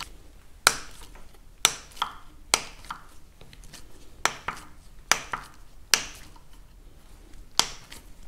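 Sharp metallic snaps, about a dozen at irregular intervals, from a rust-seized idle adjusting screw cracking loose in its threads as a screwdriver turns it out of a Farmall M carburetor body.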